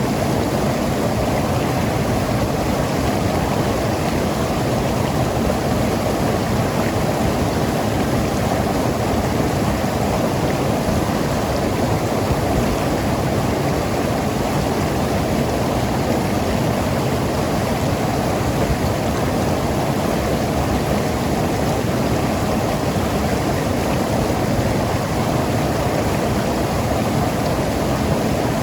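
Mountain river rushing and gurgling over rocks: a steady, full water noise with no let-up.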